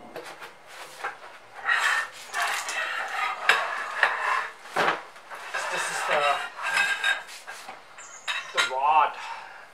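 Steel tire-rack parts, a long metal tube and a black steel bracket, clinking and scraping together as they are handled and fitted on a foam sheet, in a run of uneven knocks and scrapes.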